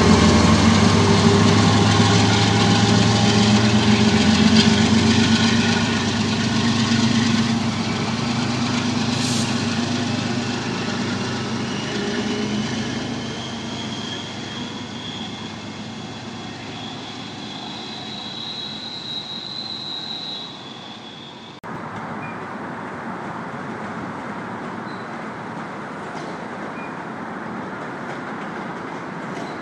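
MPI HSP46 diesel locomotive passing close with its engine running, then fading as it moves away. A thin high whine rises in pitch for several seconds midway as another train approaches, and after a sudden cut a commuter train rolls by with a quieter, steady rumble.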